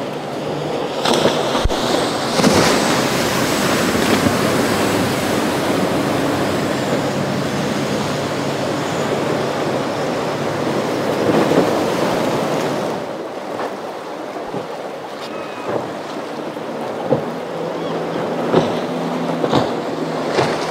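Rushing water and surf from powerboats' wakes in rough inlet water, with wind on the microphone and the steady drone of boat engines. The rush is loudest for the first dozen seconds, then eases, leaving a low engine hum and a few sharp knocks near the end.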